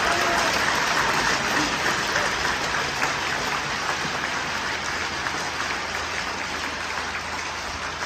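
Large arena crowd applauding, a dense clapping that slowly fades.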